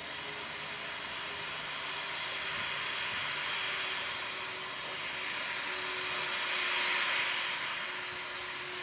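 Steam locomotive WW 644, a 4-6-4 tank engine, blowing steam from its open cylinder drain cocks: a loud, steady hiss that swells about seven seconds in, with no exhaust beats.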